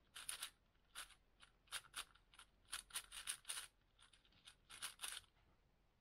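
Plastic Rubik's cube being turned quickly by hand: a run of short, irregular clicks and scrapes, some in quick bunches of two or three.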